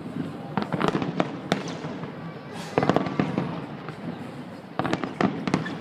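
Aerial fireworks shells bursting in quick clusters of sharp bangs, about a second in, near three seconds and again near the end, with a rumbling echo between.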